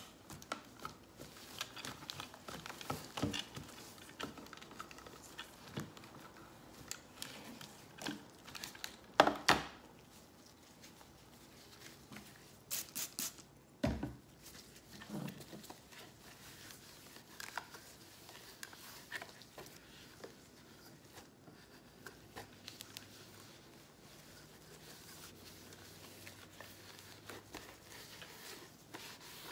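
A cloth wiping and rubbing over the plastic body of a handheld megaphone, with rustling of the cloth and gloved hands. A few sharp knocks as the megaphone is handled and set down, the loudest about nine seconds in and another about fourteen seconds in.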